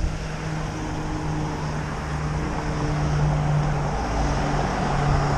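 A car driving along: a steady engine drone with road and tyre noise, getting a little louder near the end.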